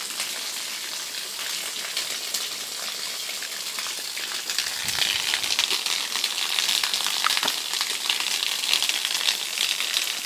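Water pouring from a homemade bamboo shower spout and splashing onto the ground: a steady hiss that grows louder about halfway through, with scattered light clicks.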